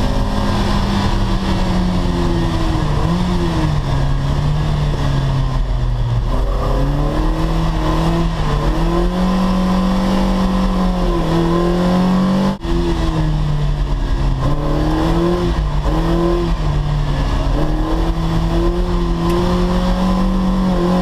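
Lotus Elise S1 Sport 135's Rover K-series four-cylinder engine, heard from inside the cabin, revving up and down over and over as the throttle is worked to hold the car in a drift. The sound cuts out briefly about twelve seconds in.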